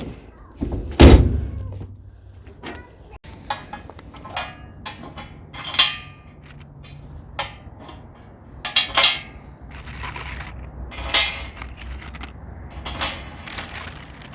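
A series of knocks and clunks from metal sawmill parts being handled and set down, the loudest about a second in and a few more spaced every couple of seconds after.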